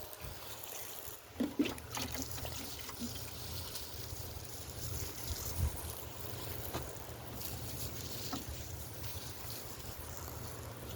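Wind rumbling on the microphone, with a few short knocks and rustles.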